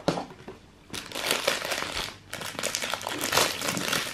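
Clear plastic wrapper crinkling as it is pulled open from around a chocolate, starting about a second in, with a short break a little past the middle.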